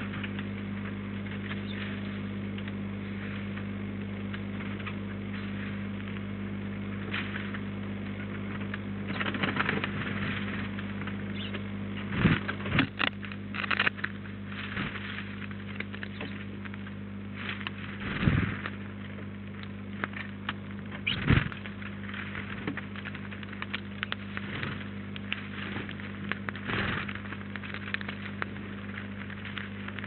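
A steady low electrical mains hum from the feeder camera's audio. From about ten seconds in, short knocks and scratchy sounds come in as house sparrows land on the wooden seed feeder and feed.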